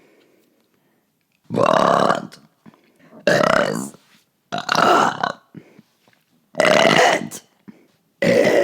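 A run of five long, loud burps, each lasting under a second and spaced a second or two apart; the last one starts near the end.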